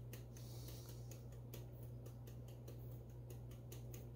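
Ground mustard being sprinkled lightly from a spice container: faint, quick ticks, about four a second, over a steady low hum.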